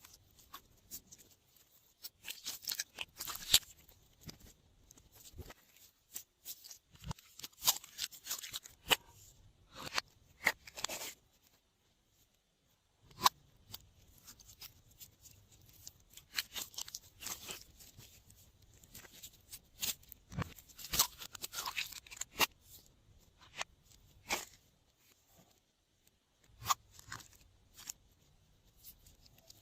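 Glossy slime being squished, folded and stretched by hand, giving irregular clusters of sticky crackling pops and clicks, with a brief pause about twelve seconds in.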